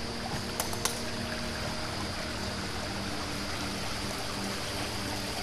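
Flooded stream rushing steadily, swollen with storm water. A couple of faint clicks about a second in.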